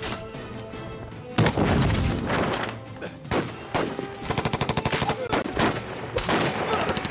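Gunfire in a night firefight: a loud shot about a second and a half in, more single shots, then a rapid burst of automatic fire about halfway through, over dramatic background music.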